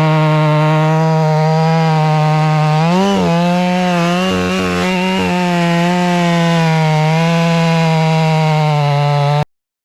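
Chainsaw engine running at high revs, its pitch wavering and dipping briefly about three seconds in, then cutting off suddenly near the end.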